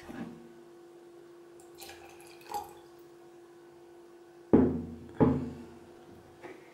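Two dull thumps about two-thirds of a second apart, a little past halfway through, over a faint steady hum.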